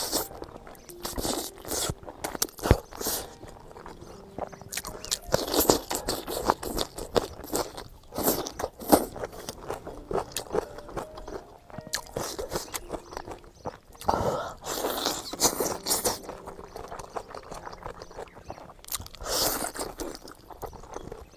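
A person eating braised pig trotters with vegetables: irregular chewing, smacking and biting, with louder crunchy bites every few seconds.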